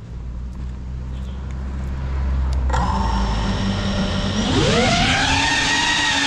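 Small FPV drone's brushless motors and propellers. A low hum changes about three seconds in to a higher whine as the props spin up, then the whine rises steeply and grows louder as the drone throttles up to lift off.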